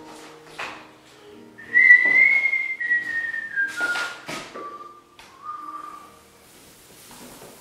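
A person whistling a slow tune, a single clear line of held notes stepping downward, with a couple of light taps partway through.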